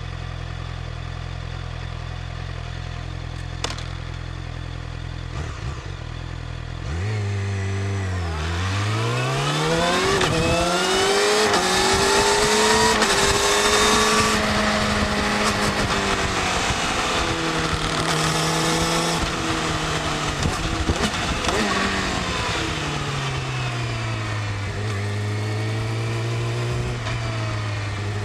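Yamaha YZF-R6 inline-four sport bike engine through its stock exhaust, idling steadily at first. About seven seconds in it revs up, its pitch climbing and staying high for several seconds with a dip and a rise along the way. Near the end it falls back to a steady low run.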